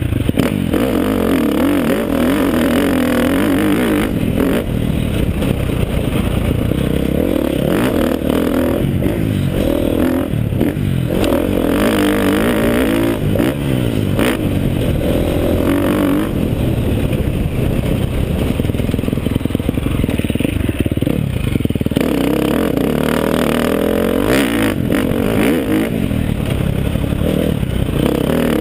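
KTM 350 SX-F single-cylinder four-stroke dirt bike engine running under way. Its pitch rises and falls as the throttle is worked and the gears change, with rattling and wind noise from riding over rough dirt. The engine is new and on its break-in ride.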